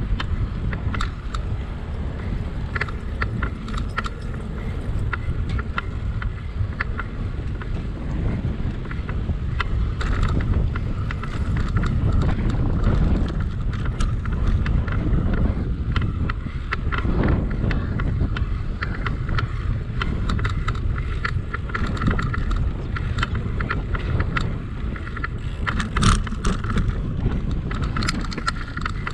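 Bicycle ride heard from the bike: a steady low rumble of wind buffeting the microphone and the rolling bike, with scattered light clicks and rattles. There is a louder rattle near the end.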